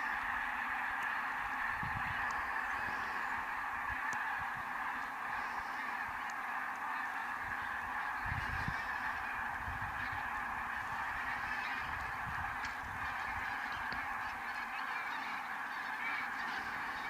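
A large flock of geese honking continuously, a dense, steady chorus of many overlapping calls, with occasional low rumbles underneath.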